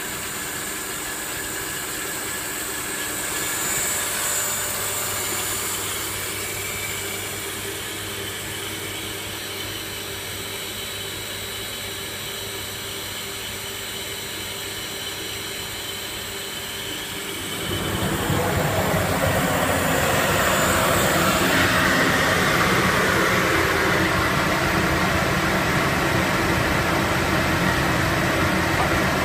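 Giardina wood-finishing line (roller coater and UV-curing tunnel) running: a steady machine hum with several motor tones. A little past halfway the noise jumps suddenly to a louder, rushing whir and stays there.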